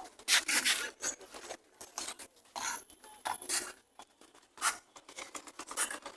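Market bustle: irregular clattering, rustling and scraping from goods and people moving about, with short uneven bursts of noise.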